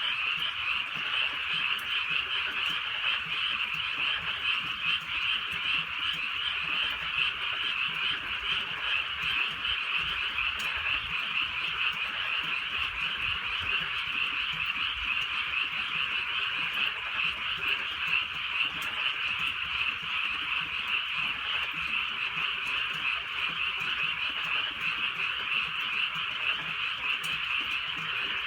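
A dense chorus of many frogs calling at once, a continuous overlapping croaking that holds steady without a break.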